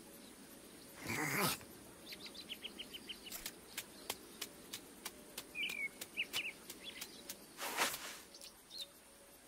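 Cartoon sound effects for a small lizard on the move. A whoosh comes about a second in and another near the end, with a run of quick light ticks and a few short high chirps between them, over faint ambience.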